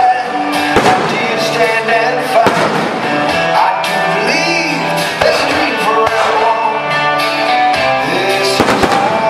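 A song with singing plays throughout, with a few sharp bangs from fireworks bursting over it.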